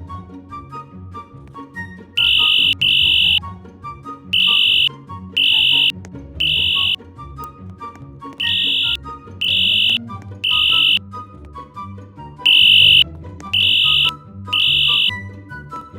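Fire alarm horn sounding in the temporal-3 evacuation pattern: groups of three short blasts with a pause between groups, repeating about every four seconds, starting about two seconds in. Classical string music plays underneath.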